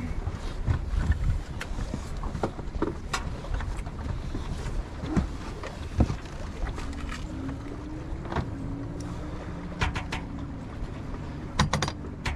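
Sailing yacht under way under sail, engine off: a steady rumble of wind on the mast-mounted microphone and water along the hull, with scattered clicks and knocks from deck gear. A faint wavering hum comes in about halfway through.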